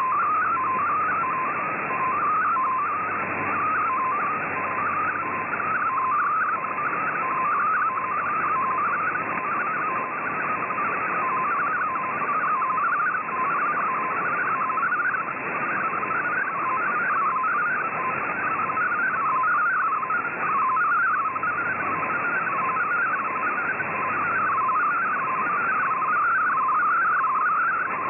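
MFSK64 digital data signal received over shortwave radio: a fast, continuous warble of hopping tones over steady radio hiss. The signal is carrying a colour image, which is being decoded as it plays.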